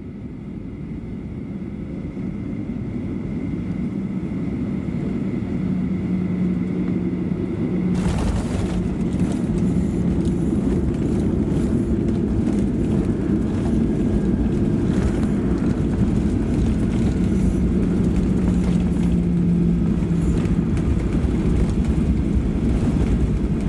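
Jet airliner landing, heard from the cabin: the noise builds on short final, then touchdown brings a sudden jump in noise about eight seconds in. After that comes a loud steady rumble of the landing roll down the runway, with the spoilers deployed.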